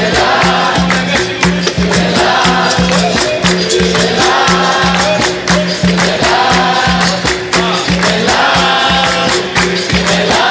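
Capoeira music: voices singing over steady, fast percussion with a tambourine.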